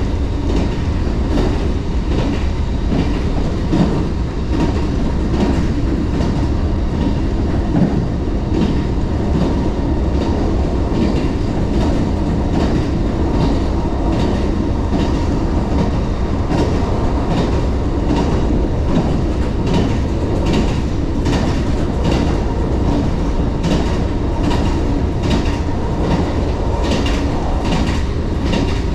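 JR 381 series tilting electric train running at speed, heard from inside the car by the door: a steady heavy rumble with a run of clicks from the wheels crossing rail joints, the clicks coming thicker in the second half.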